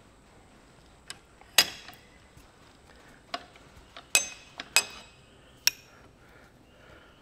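About six sharp metallic clinks and knocks at irregular intervals, some ringing briefly, as the cast-iron steering pedestal housing is shifted and re-clamped in a steel bench vise.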